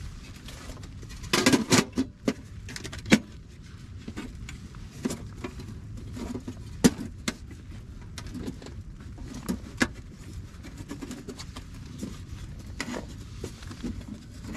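Camping gear being handled and set up by hand: scattered clinks, knocks and rustling, with a brief cluster of louder clatter about a second and a half in and a few single sharp clicks after.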